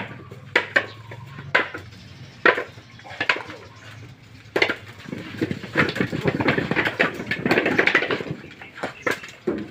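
Husked coconuts knocking against one another as they are tossed into woven baskets, single hard knocks at first. They run together into a dense clatter of many knocks for a few seconds after the middle.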